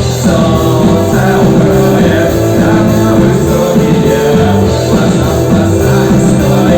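A rock band playing live with a singer, loud and continuous.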